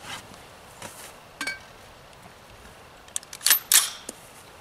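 Sharp mechanical clicks from a beer can launcher being handled and readied for the next shot: one click about a second and a half in, then a quick cluster of clacks past the middle.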